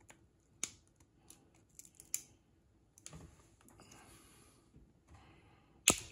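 Flush-cut snippers cutting small plastic tabs off a toy wand's plastic barrel housing: a few light clicks and some handling rustle, then a sharp snap near the end as a tab is cut through and flies off.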